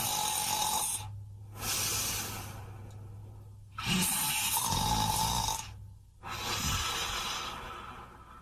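A person snoring: a loud snore followed by a softer breath that fades away, twice, about four seconds apart.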